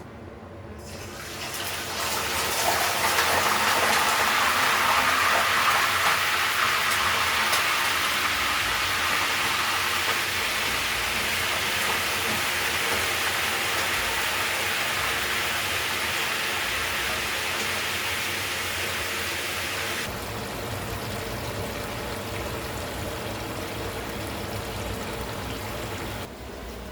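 Water running steadily, a continuous rush that swells up about a second in, changes slightly about twenty seconds in and stops shortly before the end.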